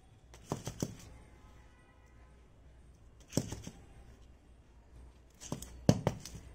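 Hands scooping potting soil and pressing it in around a plant in a plastic pot: short clusters of taps and rustles about half a second in, around three and a half seconds in, and near the end, the last the loudest.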